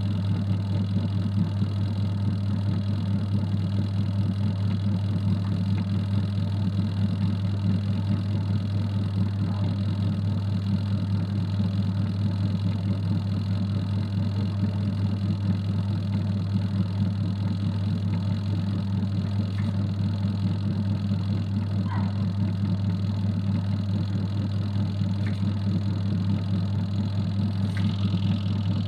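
Adler AD8051 mini washing machine running with a steady, unbroken motor hum, with a few faint ticks late on.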